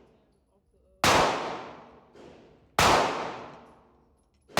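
Three gunshots at a firing range, spaced evenly about a second and a half apart. Each is a sharp crack followed by an echo that dies away over about a second. The third shot lands right at the end.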